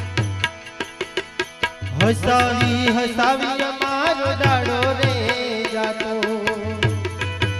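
Bhajan music played live: harmonium with tabla strokes and deep low drum thuds keeping the rhythm. About two seconds in, a louder melodic line with sliding, wavering notes comes in over it.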